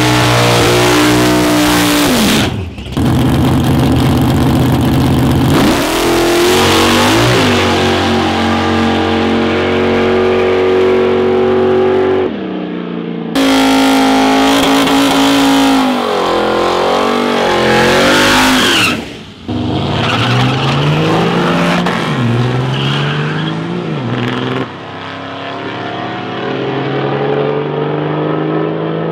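Tuned diesel drag trucks at full throttle, their engine notes climbing and dropping with gear changes. The sound comes in several loud clips cut together, with abrupt breaks between them.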